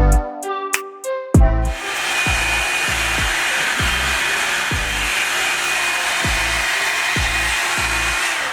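Background music with a steady beat; about two seconds in, a Revlon One-Step hot-air hair dryer brush starts running with a steady hiss of air and a faint high whine, and it cuts off just before the end while the beat carries on underneath.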